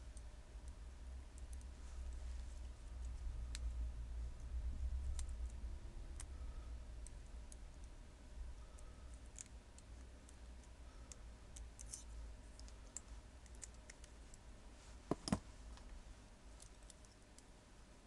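Faint metallic clicks and scrapes of a lock pick and tension wrench working the pins of a small brass Regia padlock, scattered and irregular, with two louder clicks about 15 seconds in. A low rumble runs through the first several seconds.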